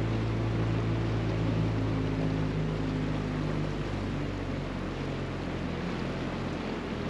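Small outboard motor on an inflatable dinghy running steadily at low speed, easing off about four seconds in, over a steady hiss.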